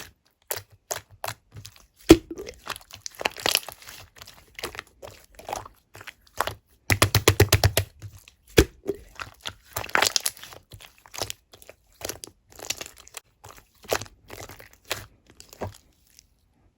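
Clear slime being pressed and poked by hand, making sharp, wet clicking pops, with a quick rapid run of pops about seven seconds in. The sound stops shortly before the end.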